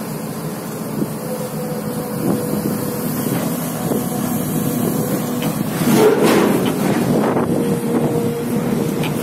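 Diesel engine of a SANY long-reach excavator running steadily with an even hum. About six seconds in, louder rustling noise, like wind on the microphone, rises over it for a second or two.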